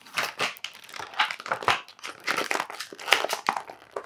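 Stiff clear plastic blister packaging crinkling and crackling as hands pull and bend it apart, in a rapid, irregular string of crackles.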